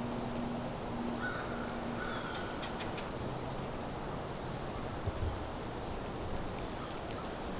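Woodland ambience: a steady hiss of wind and leaves with faint, short bird chirps scattered throughout.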